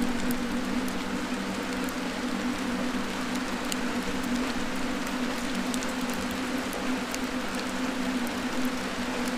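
Wood fire burning in a fireplace, hissing steadily with scattered small sharp crackles, over a held low drone tone.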